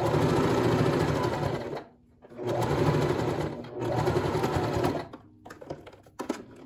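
Janome electric sewing machine stitching a binding strip onto thick terry cloth in three runs of a second or so each, with short pauses between, then stopping. Faint clicks of fabric handling follow near the end.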